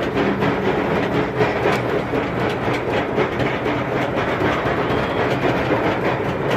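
SheiKra steel roller coaster train running along its track, a steady rumble with rattling wheel and track clatter.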